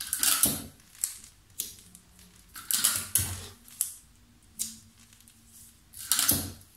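Sheets of paper sewing-pattern pieces being handled and folded on a table: a series of short rustles and crinkles, loudest at the start and about six seconds in.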